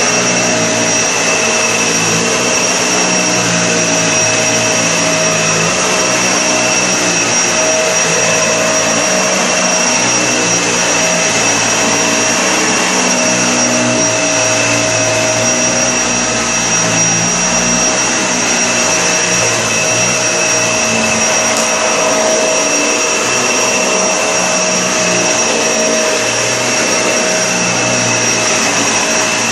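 Vacuum cleaner running without a break, a steady rushing noise with a constant high motor whine over it.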